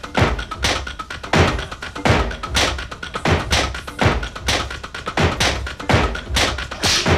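Rhythmic sharp slaps and thuds, about two a second, over faint music: the hand-on-leather slapping and stamping of Schuhplattler dancing.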